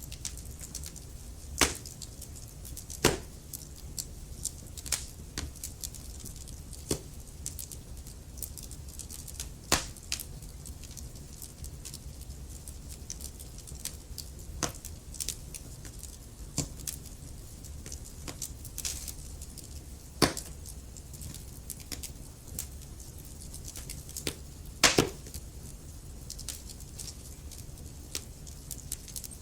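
Wood fire burning in a fireplace: a steady low rumble of flames with irregular sharp crackles and pops from the logs, a few louder snaps among them.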